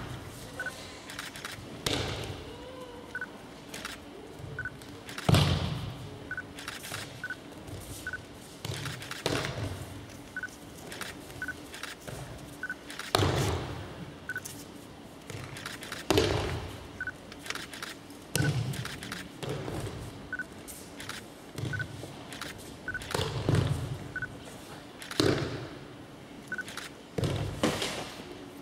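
Repeated thuds of bodies being thrown onto tatami mats in aikido breakfalls, one every two to three seconds.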